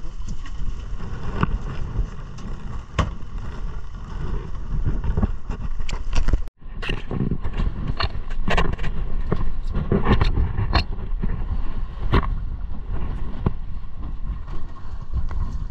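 150 hp outboard motor running on a small fishing boat pounding through rough sea, with repeated sharp knocks of the hull slamming into waves, denser in the second half, over a constant rush of wind and water. The sound cuts out for an instant about six and a half seconds in.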